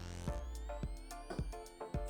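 Background electronic music with a steady beat: a sustained bass and synth tones under drum hits about twice a second.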